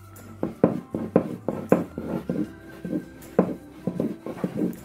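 Thin wooden rolling pin rolling out starch-dusted baklava dough on a wooden board: irregular knocks and thuds, two or three a second, starting about half a second in, over faint background music.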